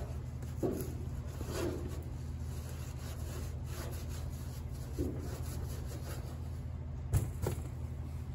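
A few scattered rubbing and scraping strokes of a hand working over the bare metal of a car hood's underside near the hinge, with one sharper knock about seven seconds in, over a steady low hum.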